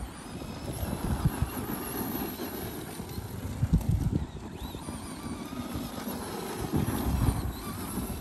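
Traxxas Bigfoot No. 1 RC monster truck driving over gravel: a faint electric-motor whine that rises and falls with the throttle, over tyres crunching on loose stones, with irregular low thumps.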